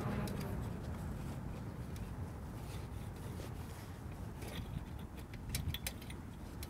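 Faint rustling of a cloth rag and gloved hand wiping a lawn mower engine, with a few small clicks about five seconds in, over a low steady background rumble.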